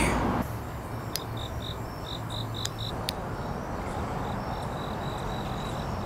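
Crickets chirping: a run of short, evenly spaced chirps about four a second, settling into a steadier trill, over a low steady rumble, with a couple of faint clicks.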